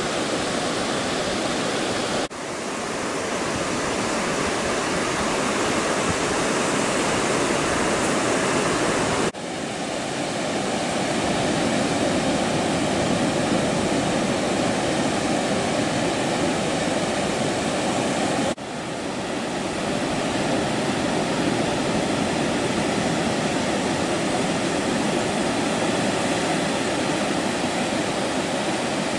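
Ocean surf breaking on a beach: a steady, dense wash of waves. It drops out abruptly three times, each time swelling back in over a second or two.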